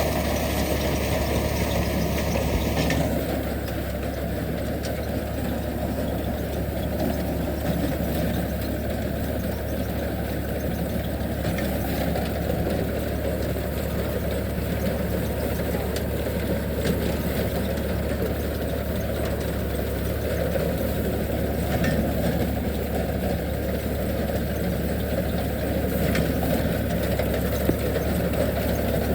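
Tractor engine running steadily with a deep, even drone. A higher-pitched whine stops suddenly about three seconds in.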